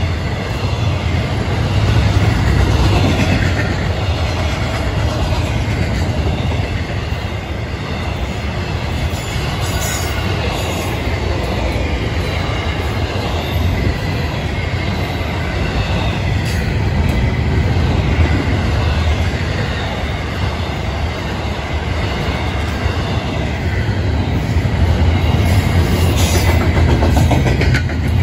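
Florida East Coast Railway freight train's intermodal cars, trailers on flatcars and double-stacked containers, rolling past: a steady low rumble of steel wheels on rail.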